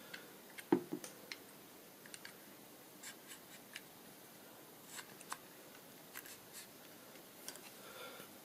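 Faint, scattered small clicks and light scraping as the reader head of a DRO glass scale is pushed into its aluminium rail and handled, with one sharper knock a little under a second in.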